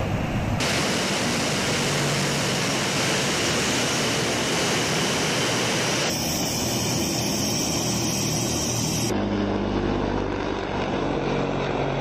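Loud, steady aircraft engine noise across several spliced clips. The middle part is a Tu-95-family turboprop bomber's engines and contra-rotating propellers running as it taxis. After a cut about nine seconds in, a swept-wing jet bomber's engines run on its takeoff roll.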